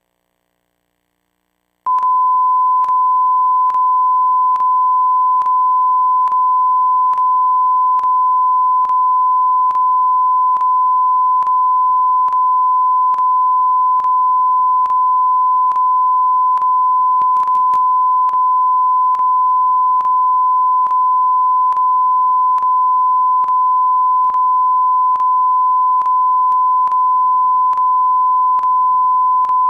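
Steady 1 kHz test tone from a VHS tape, starting abruptly about two seconds in after silence and played over the tape's closing white screen. It carries a faint tick a little more than once a second.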